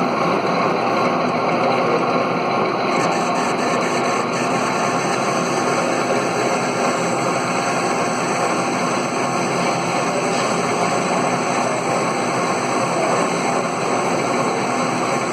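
Metal lathe running steadily in a workshop, with a dense, even machine noise.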